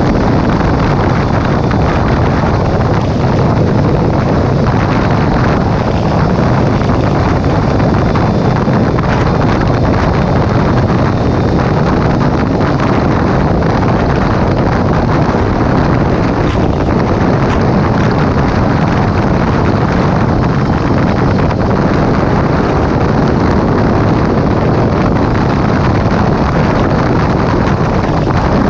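Steady wind rush on the microphone of a sport motorcycle riding at highway speed, with the motorcycle's engine running underneath.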